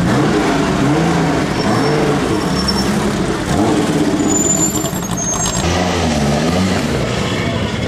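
Air-cooled flat-six engine of a classic Porsche 911 rally car being revved at low speed, its pitch rising and falling again and again as the throttle is blipped.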